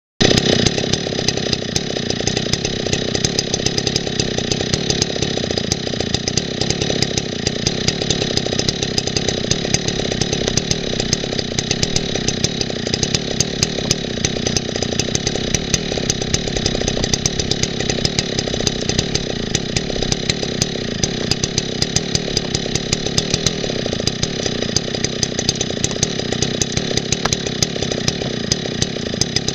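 Stihl two-stroke chainsaw idling steadily at an even speed, with no revving or load on it.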